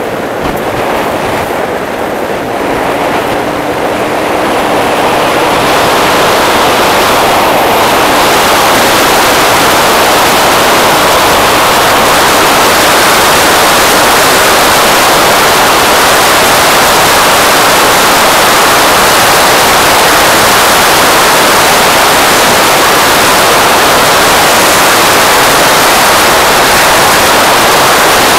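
Loud, steady rush of wind over the microphone of a scooter on the move, building over the first few seconds as it gathers speed. A faint rising engine whine shows through early on.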